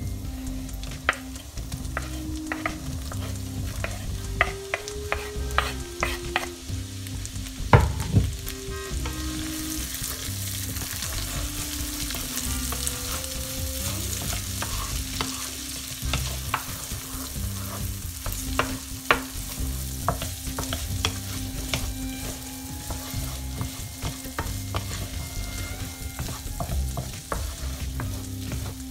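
Chopped onions hitting a frying pan of hot melted butter and spices, then stirred with a wooden spatula: scraping and clicking of the spatula against the pan, with one sharp knock about eight seconds in. The frying sizzle grows louder from about ten seconds in and keeps going.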